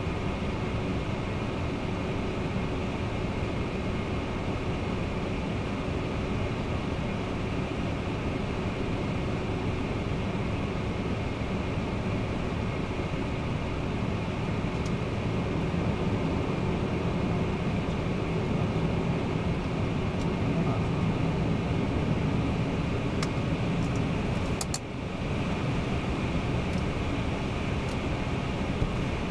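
Steady flight-deck noise of a taxiing Boeing 767-300ER: a low engine hum under a constant airflow hiss. It swells slightly past the middle, with a few faint clicks and a brief drop near the end.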